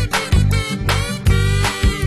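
Background music with a steady beat: an upbeat instrumental track with bass, drums and pitched instruments.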